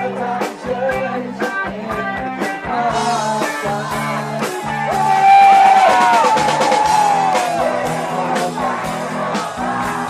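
Live rock band playing: a steady drum beat and bass with guitar and singing. A held, bending melody line swells loudest about halfway through.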